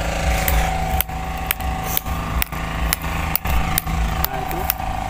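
A machine running steadily with a low hum, and a sharp click repeating about twice a second.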